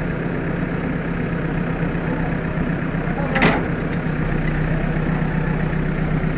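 JCB backhoe loader's diesel engine running steadily at idle, with one short sharp noise about three and a half seconds in.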